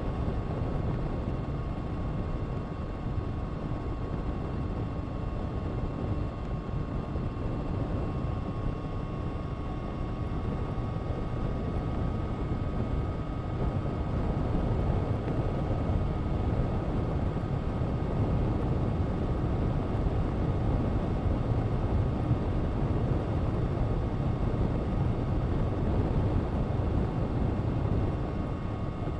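Honda CBR1000RR-R SP Fireblade's inline-four engine through an Akrapovič exhaust, running at a steady pace without sharp revs. It gets a little louder about halfway through.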